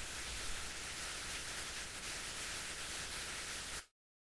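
Steady hiss of recording background noise, with no speech or other sound, cutting off abruptly into dead digital silence near the end.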